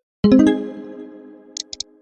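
A short synthesized chime: several quick notes struck almost together that ring on and fade over about a second and a half. Three faint clicks come near the end.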